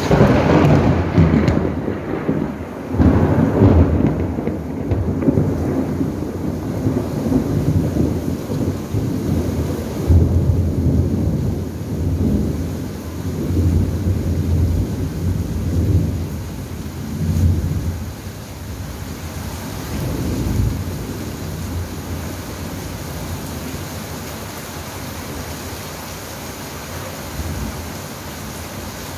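Thunder rolling in long deep waves over steady rain: loudest at the start and again about three and ten seconds in, then rumbling on more weakly and dying away, leaving only the rain.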